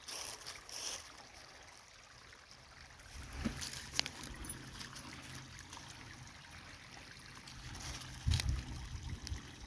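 Small creek babbling and trickling over rocks, with a few low bumps from wind or handling on the microphone.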